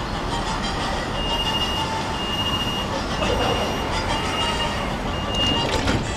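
Portland Streetcar's door warning: a high beep repeated about five times, roughly once a second, as the streetcar stands at the stop with its doors about to close. Steady street and vehicle noise runs beneath.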